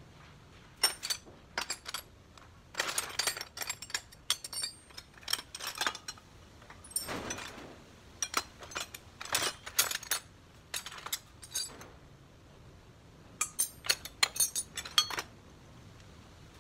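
Hand tools and small metal parts clinking and clacking as they are handled, in irregular bunches of sharp clicks with a short scrape partway through and a last quick flurry near the end.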